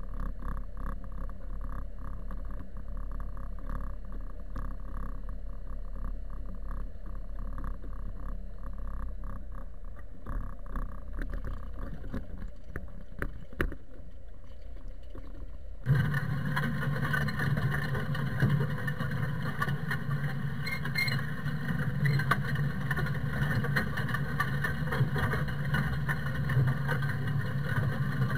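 Zetor tractor's diesel engine running under load while pulling a field cultivator through soil. About sixteen seconds in the sound changes abruptly to a louder, steady engine drone with a strong low hum.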